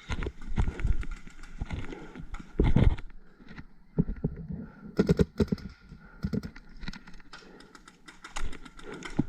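Irregular footsteps and knocks of carried gear as a paintball player moves, with a quick cluster of sharp clicks about five seconds in.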